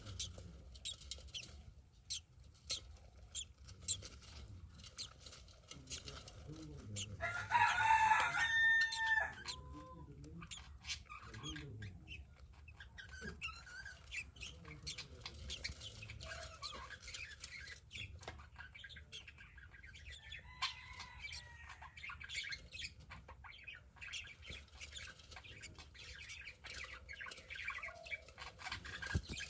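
A rooster crowing: one loud, drawn-out crow about a quarter of the way in and a fainter one about two-thirds through, over scattered short clicks and chirps.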